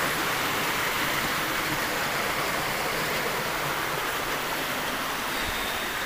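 Waterfall rushing steadily, a constant hiss of falling water.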